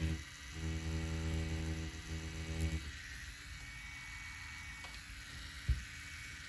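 FK Irons Spectra Flux rotary tattoo machine running steadily as its needle lines an orange's peel. It dips briefly about a quarter second in and stops about three seconds in as the machine is lifted off, and a single sharp knock follows near the end.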